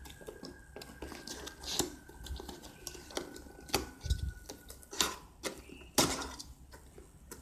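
A cardboard parcel wrapped in plastic and packing tape being handled and pried at: a handful of sharp crinkles and taps, the loudest about five and six seconds in.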